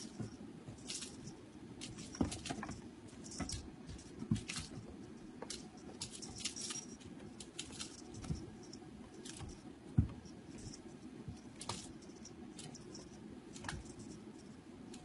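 A cat leaping and batting at a dangling toy mouse: irregular scrabbling taps and scrapes of paws and claws on a carpeted cat tree, with a sharper knock about ten seconds in, over a faint steady hum.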